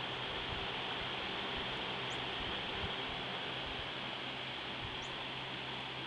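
Steady hiss with a low hum underneath, and two faint, brief high chirps about three seconds apart.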